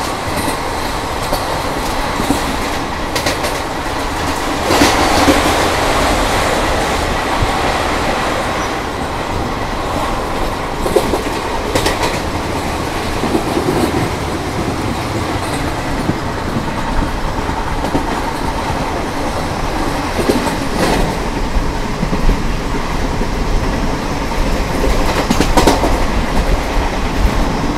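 Passenger train running at speed, heard from on board: a steady rumble of wheels on the track with occasional sharp clicks from rail joints.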